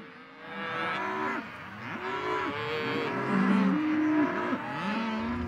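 A herd of cattle mooing, several cows calling at once, their calls overlapping and sliding up and down in pitch.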